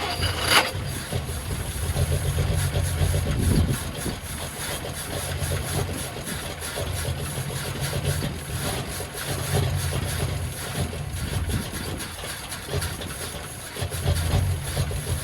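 Old Vauxhall Velox six-cylinder engine running, its low note swelling and easing every few seconds.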